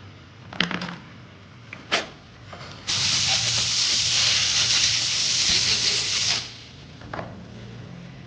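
A pressurised jet hissing loudly and steadily for about three and a half seconds, starting and stopping abruptly, typical of a blast of compressed air or spray in a machine shop. A few sharp clicks and knocks come before it and one after it.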